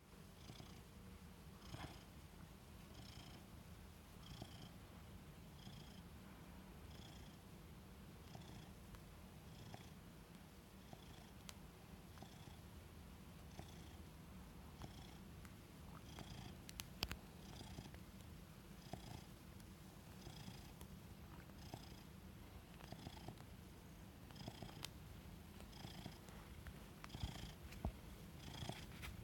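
Domestic cat purring steadily up close, a low continuous rumble with a faint higher rasp recurring about every second and a third.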